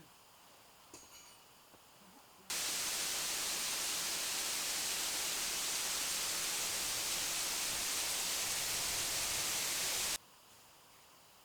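A loud, perfectly steady hiss like static that starts suddenly about two and a half seconds in and cuts off suddenly about ten seconds in.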